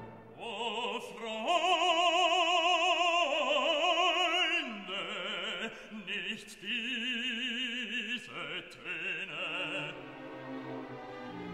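Background music: operatic singing with a wide vibrato, long held notes that step to a new pitch every second or two.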